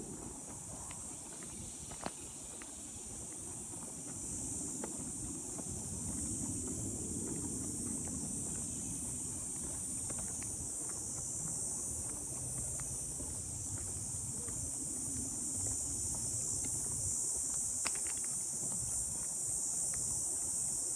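Steady high-pitched insect chorus, with a walker's footsteps on a dirt-and-gravel trail and a low rumble underneath.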